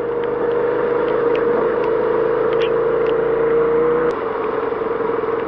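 Suzuki SV650's V-twin engine running at a steady speed under wind and road noise, with a steady drone that dips slightly about four seconds in.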